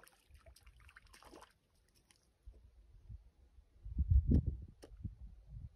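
A hooked arctic grayling splashing and dripping as it is lifted out of the lake surface about four seconds in, over a low rumble of wind on the microphone.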